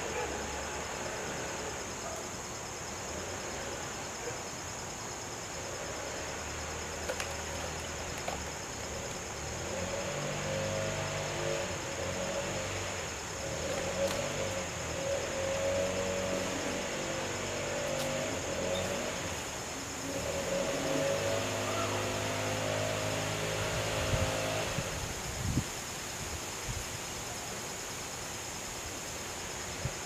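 Steady high-pitched insect chorus, like crickets, running throughout. From about ten seconds in to about twenty-five seconds in, a faint low sound of shifting tones rises over it, then fades.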